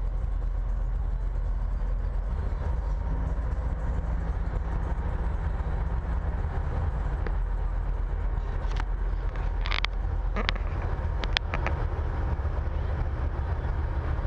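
Big-rig diesel engine idling steadily with a deep, even rumble, with a few short sharp clicks in the second half.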